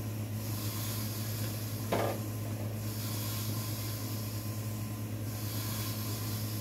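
Tap water running into a metal kitchen sink as it is rinsed out: a steady hiss over a constant low hum, with a single short clunk of something in the sink about two seconds in.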